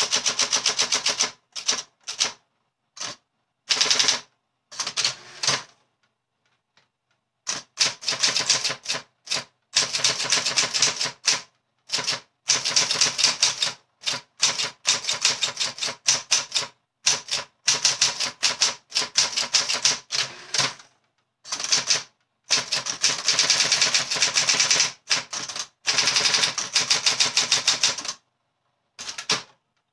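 Olympia SGE 35 electric typewriter being typed on: rapid runs of sharp key strikes in bursts of a few seconds, with short pauses between them.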